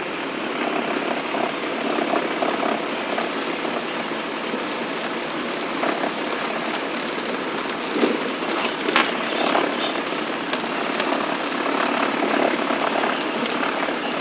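Twin piston engines and propellers of a Piper Aztec heard from inside the cabin at low taxi power: a steady, dense noise. A single sharp click sounds about nine seconds in.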